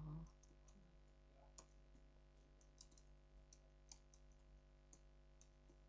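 Faint computer keyboard keystrokes: irregular, sparse clicks, a few a second, over a steady low electrical hum.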